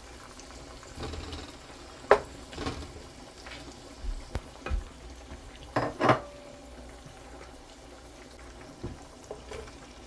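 Wooden spatula stirring chopped onion and tomato in a nonstick frying pan over a faint sizzle, with a few sharp knocks of the spatula against the pan, the loudest about two seconds and six seconds in.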